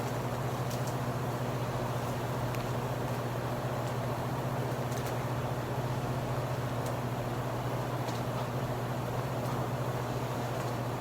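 A machine running steadily with a low, unchanging hum, with a few faint ticks scattered through it.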